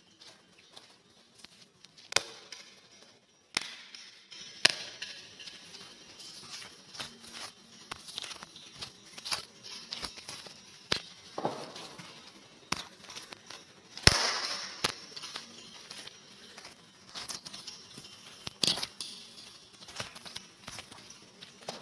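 Irregular crackling and clicking noise, with sharp pops scattered throughout and a few louder cracks, the loudest about fourteen seconds in, over a faint high hiss.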